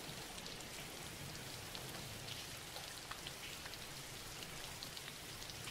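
Faint, steady rain falling, with small scattered ticks of individual drops.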